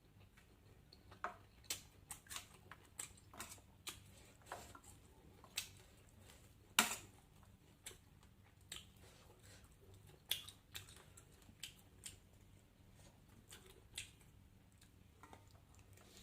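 A person eating at close range: irregular crisp clicks and crunches of biting and chewing, roughly one a second, the loudest about seven seconds in.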